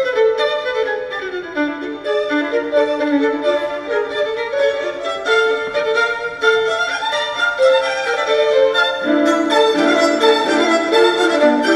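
Live tango music from a small string ensemble, a violin carrying a slow, sustained melody over the accompaniment. A lower line joins about nine seconds in.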